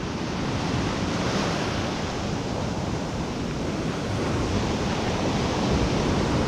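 Ocean surf breaking and foamy wash running up a sandy beach in a steady rush, growing a little louder near the end as the wash comes in, with some wind rumbling on the microphone.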